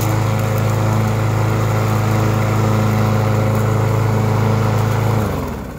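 Craftsman M260 self-propelled lawn mower's gas engine running steadily, then shutting off near the end, its pitch sinking as it winds down.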